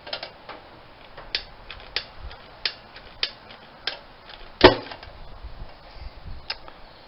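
A handheld lighter clicked over and over, failing to light: a string of sharp clicks, roughly one every half second to second, with one louder knock about two-thirds of the way through.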